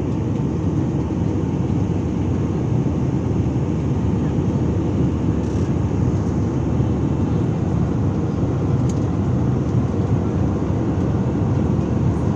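Steady low rumble and rush of an Airbus A320-family jet airliner's engines and airflow, heard inside the passenger cabin during the climb.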